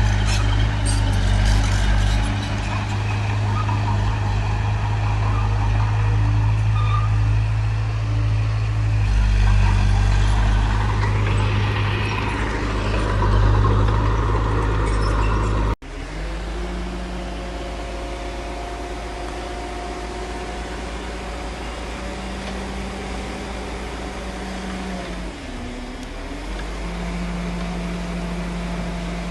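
Heavy diesel engines of earthmoving machinery running steadily. The sound cuts abruptly about halfway through to a quieter, different engine note, which drops and rises again near the end.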